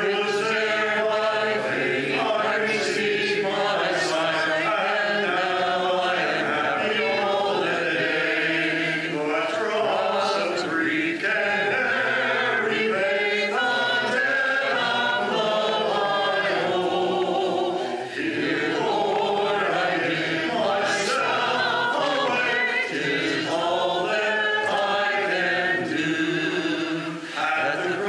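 A congregation singing a hymn a cappella in unaccompanied voices, with only brief pauses between lines.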